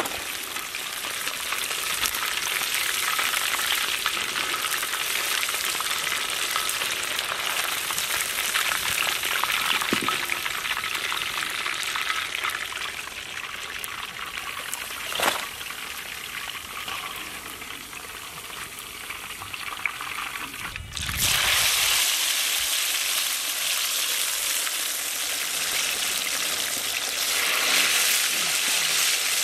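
Chicken leg pieces deep-frying in a kadai of hot oil: a steady, crackling sizzle. There is one sharp tick about halfway, and about two-thirds of the way through the sizzle drops out briefly with a low thump, then comes back louder.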